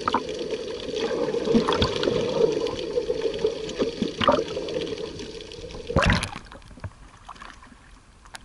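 Water trickling and splashing, with scattered small clicks and one sharp knock about six seconds in, after which it goes much quieter.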